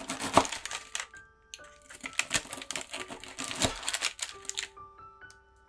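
Knife pressing down through a slab of baked oat-and-nut granola on baking paper: a dense, crisp crunching crackle in two spells, stopping a second before the end. Soft background music plays under it.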